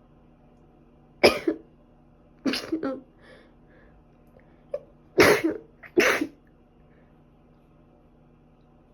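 A person sneezing in a fit: four sharp sneezes over about five seconds, the last two close together, from a runny nose and sneezing that won't stop.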